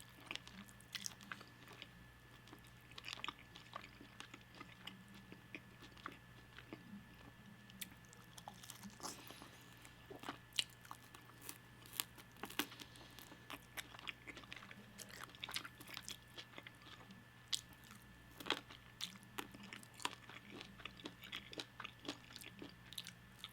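Close-miked eating: crisp bites and wet chewing of fried chicken wing flats, a scatter of short, sharp mouth clicks and crunches over a faint steady hum.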